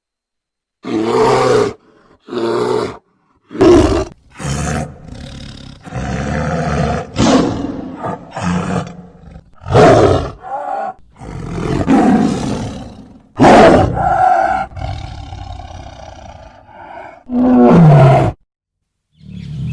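A string of loud roars and growls from a large wild animal, about a dozen separate calls with short silent gaps, cut in one after another; the last one, near the end, falls in pitch.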